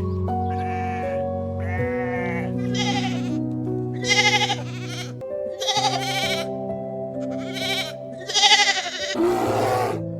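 Sheep bleating repeatedly, about one short quavering bleat a second, over soft background music with long held notes.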